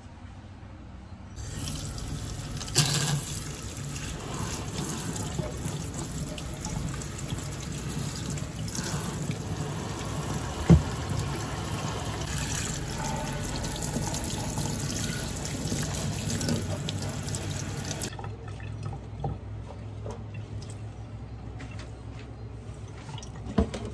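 Water running from a tap into a sink, turned on about a second and a half in and shut off about three-quarters of the way through, with a couple of sharp knocks of things handled in the sink; after the tap closes, a few quieter knocks and clicks.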